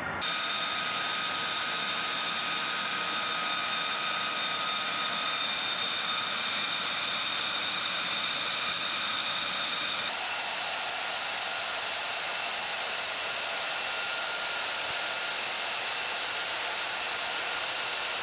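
F-35B's Pratt & Whitney F135 jet engine running on the ramp: a steady high-pitched whine over a loud hiss. The whine's pitch shifts abruptly about ten seconds in.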